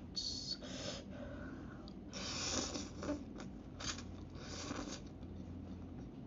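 Instant noodles being slurped off a fork in about five short sucking slurps, the longest about two seconds in.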